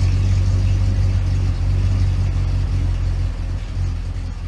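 A car engine running with a deep, steady rumble that eases off slightly near the end.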